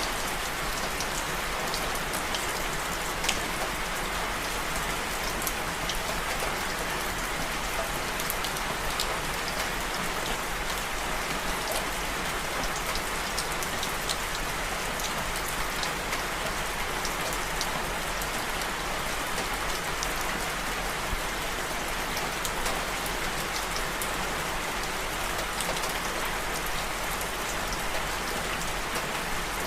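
Steady rainfall: an even hiss with many small drop ticks scattered through it.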